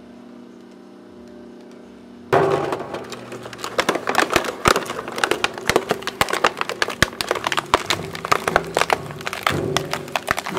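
Homemade plastic shredder running: its motor and gearbox hum steadily with the blades empty, then a little over two seconds in, plastic reaches the blades and is chewed up with dense, irregular cracking and snapping.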